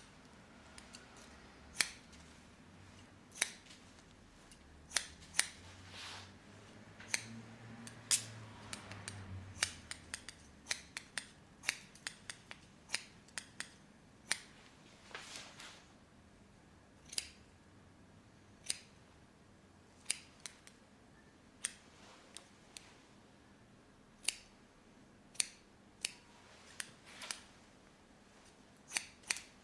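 Barber scissors snipping: sharp metallic clicks of the blades closing, mostly one every second or so, with a quicker run of snips about a third of the way through.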